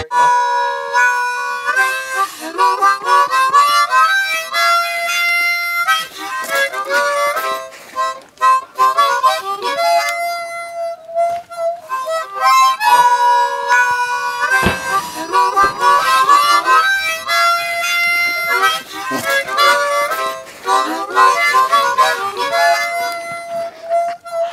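Instrumental background music: a lead melody of held notes and quick runs of notes.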